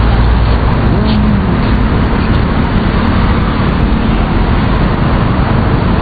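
Steady road traffic noise, a continuous low rumble of cars and motorcycles.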